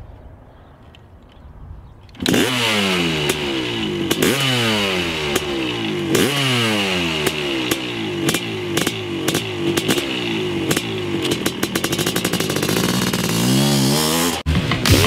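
Honda CR500's big single-cylinder two-stroke engine being revved in place with sharp throttle blips about every two seconds, each rising quickly and falling away. It starts suddenly about two seconds in, and the revs climb faster near the end.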